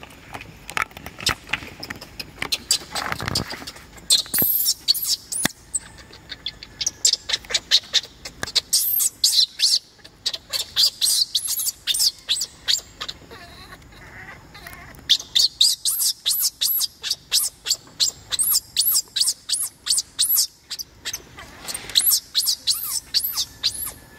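Newborn baby macaque crying in rapid runs of short, high-pitched rising squeals, several a second, in bouts with brief pauses between: infant distress cries at being refused the breast.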